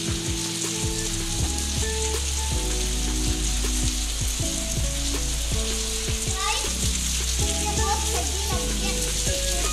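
Steady heavy rain hissing down, with music of held notes underneath it.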